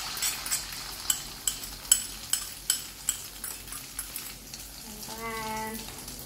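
Beaten egg for an Indonesian omelette (telur dadar) frying in hot oil in a wok with a soft sizzle. A metal spoon clinks against the ceramic bowl about twice a second as the last of the egg is scraped out into the pan. About five seconds in there is a brief steady-pitched sound.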